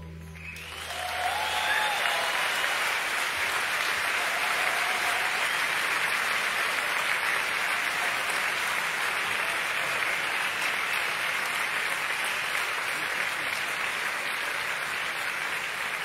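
Concert audience applauding: the applause breaks out about half a second in and holds steady, while the low drone of the music dies away in the first two seconds.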